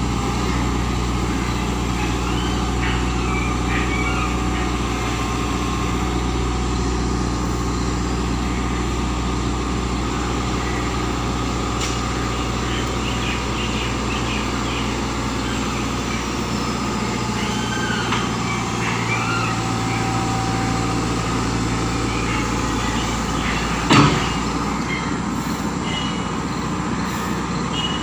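Tata Hitachi excavator's diesel engine running steadily, with one sharp clank near the end.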